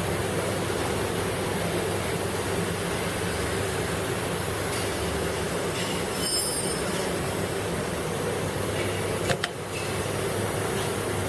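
Six-nozzle syrup bottle filling machine running with a steady mechanical hum. A few brief high squeaks come about six seconds in, and a single sharp clack about nine seconds in.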